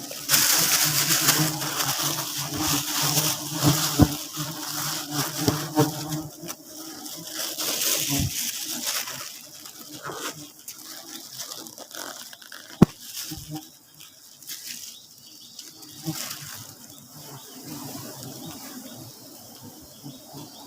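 Swarm of honeybees buzzing: a steady low hum for the first eight seconds or so, then quieter, with a few sharp knocks.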